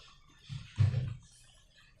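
Slime and transparent rubber balloons being handled: a faint short sound about half a second in, then a louder, longer one lasting under half a second a little before a second in.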